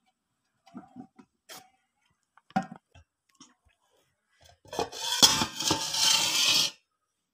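A stainless steel bowl rubbing and rattling against a steel plate of chopped rose apples in salt and chilli, about two seconds of dense scraping noise starting near the five-second mark, after a few light clicks of the dishes being handled.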